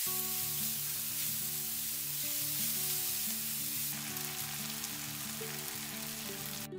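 Chicken breast strips, mushrooms and bell peppers sizzling in a frying pan, over background music; the sizzle cuts off suddenly near the end.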